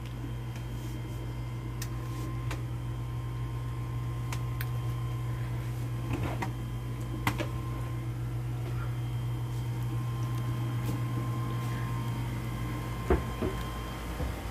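Steady low mechanical hum with a faint high whine over it, with scattered light clicks and knocks, the sharpest a little after seven seconds and about 13 seconds in.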